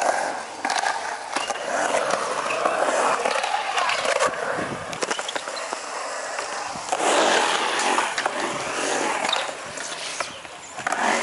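Skateboard wheels rolling on the smooth concrete of a skatepark bowl, a rough rushing roll that swells and fades as the rider carves, with a few sharp clacks of the board.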